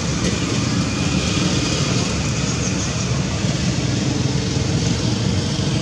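Steady outdoor background noise: a constant hiss with a low rumble underneath, without any distinct event.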